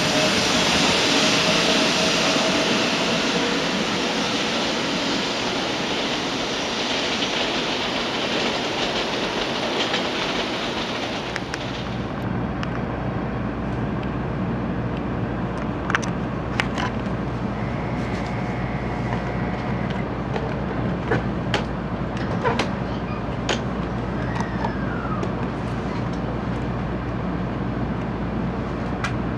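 A Series 500 Shinkansen pulling out along the platform, a broad rush of motor and wheel noise that slowly fades. About twelve seconds in, it gives way to the steady low hum inside a stationary Series 700 Railstar Shinkansen car, with a few light clicks.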